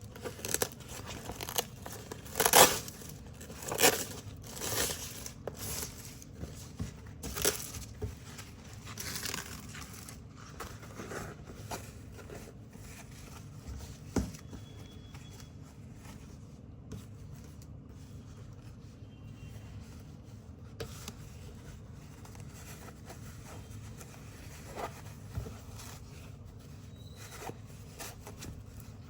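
Black hook-and-loop (Velcro) strips being pulled apart with short, crunchy ripping sounds, about eight rips in the first ten seconds. After that comes quieter handling with a few isolated clicks.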